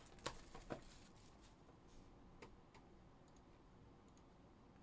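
Faint clicks and taps of cardboard trading-card boxes and packs being handled and set down on a table, a few in the first second and a couple more about two and a half seconds in.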